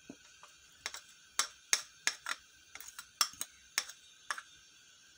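Metal spoon clinking against a small ceramic bowl while chopped coriander is scraped out: about a dozen sharp, irregular taps.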